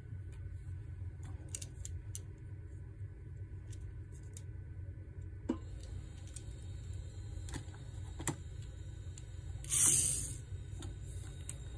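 Mini RC car's tiny electric motor whirring for about half a second, about ten seconds in, as it drives forward. Before it come a few faint clicks as the toy is handled, over a low steady background hum.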